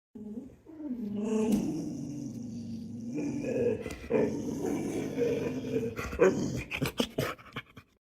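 A dog vocalizing in a long, wavering grumble, followed by a few sharp knocks near the end.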